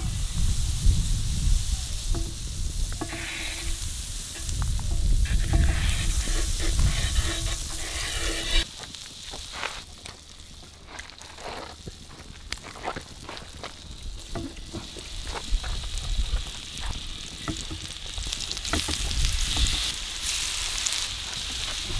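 Butter sizzling and bubbling as it melts on a hot iron tawa, pushed about with a spatula, over a low rumble. After a sudden drop in level there are a few light handling clicks, then spiced salmon steaks frying in the butter, the sizzle swelling again near the end.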